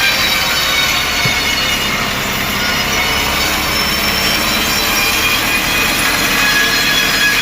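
Sawmill blade cutting steadily through a mahogany log, a continuous rasping cut with a shrill, whining ring from the blade.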